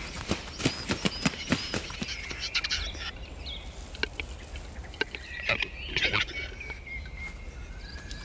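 Capercaillie cocks fighting on their lek: a run of sharp clicks and knocks, loudest in the first three seconds and again about six seconds in. Short high bird calls sound in between.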